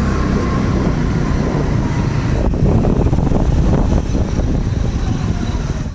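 Riding a scooter slowly: wind buffeting the microphone and road rumble, with a faint steady whine in the first couple of seconds.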